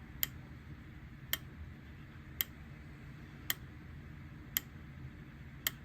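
Sharp single clicks, one about every second, six in all, over a low steady hum, as the pinball board's test cycles through the special solenoid outputs and fires them one at a time.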